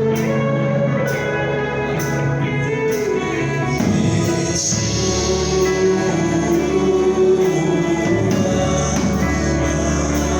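A church worship band playing gospel music live, with voices singing over the instruments and a steady beat.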